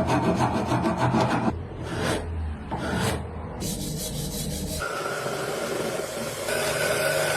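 Scraping strokes of a file or abrasive worked by hand. About halfway through, a small power tool starts running steadily with a whine.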